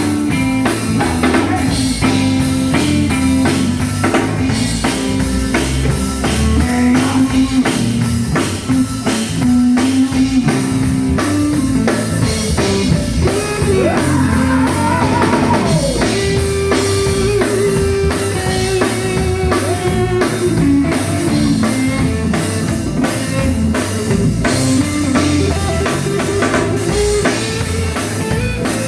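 Live gospel band playing an instrumental passage: a drum kit keeping a steady beat under guitar and bass lines, with a few bending guitar notes about halfway through.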